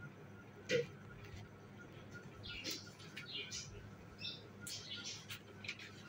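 Cockatiel making a run of short, faint, high squeaks and chirps, after a single soft knock about a second in.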